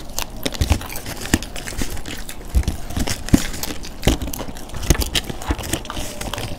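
Close-miked crunching and chewing of churmur, a chaat of crushed crisp puri and potato, eaten by hand: irregular sharp crisp crunches and wet mouth sounds.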